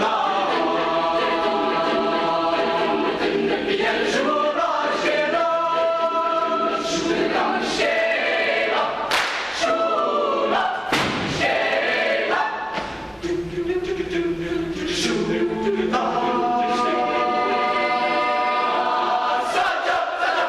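Mixed chamber choir of male and female voices singing held chords, with short hissing consonants between phrases. A little past the middle the sound thins to quieter, lower singing for a few seconds before the full choir returns on sustained chords.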